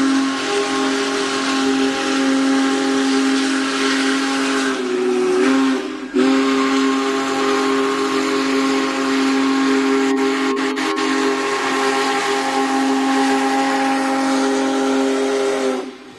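Union Pacific Big Boy No. 4014 steam locomotive's whistle blowing a long, loud chord, broken briefly about five seconds in, then sounding again until it cuts off near the end, with a hiss under it.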